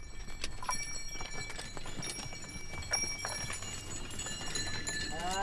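Bullock cart passing: irregular wooden knocks and rattles from the cart and the bullocks' hooves clopping, over steady ringing from the bullocks' bells. A man's voice starts calling at the very end.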